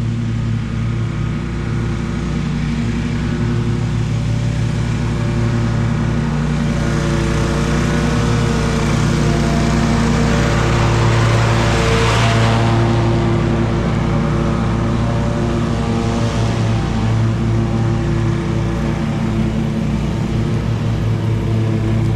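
Lawn mower engine running steadily at working speed, with a brief rise in hiss about halfway through.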